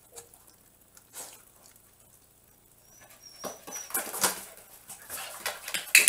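A dog's paws stepping and shuffling in a flat cardboard box, a rapid irregular run of scraping and rustling on the cardboard that starts about three and a half seconds in. Just before it there is a short, thin high squeak.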